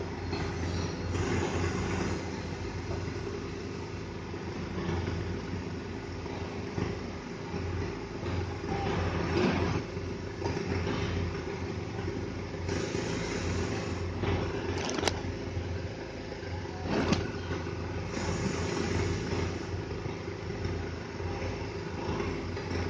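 Truck crane's diesel engine running steadily, with two sharp knocks about two seconds apart past the middle.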